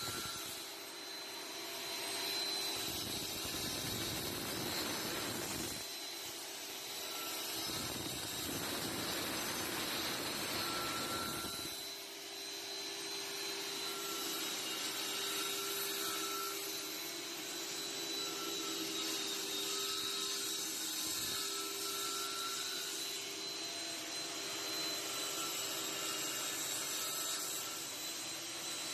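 Electric workshop machine running steadily with a high whine, working wood, its low end changing abruptly a few times in the first dozen seconds.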